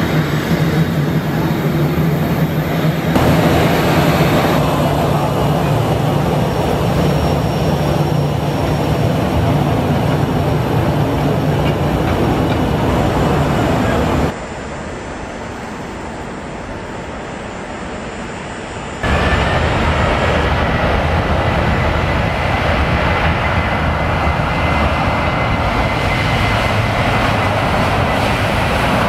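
Boeing 737 BBJ's jet engines running at low power, a steady loud rumble with a low hum. Midway it drops to a quieter noise for about five seconds, then comes back with a high, steady whine as the jet taxis.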